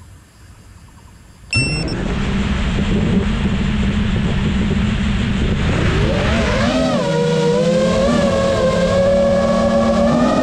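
Five-inch FPV quadcopter's brushless motors and propellers, recorded by the onboard GoPro. They start abruptly about a second and a half in with a brief high chirp and spin with a loud rushing hiss. From about halfway on, a motor whine swoops up and down in pitch as the throttle is worked for takeoff, then settles into a steady, slowly rising whine.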